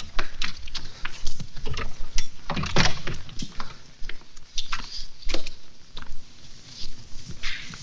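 A run of irregular clicks, knocks and rustles: a wooden door being shut and cloth being pulled about.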